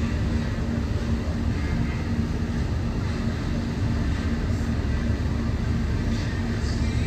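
Passenger ferry's engine running steadily under way: a low drone with a constant hum, over an even rush of wind and water.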